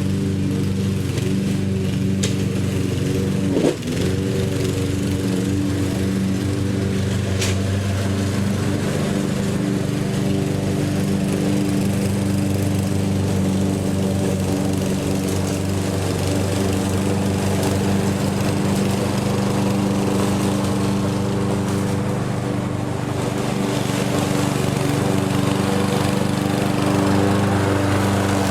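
Lawn mower engine running steadily at an even pitch, with one short knock a little under four seconds in.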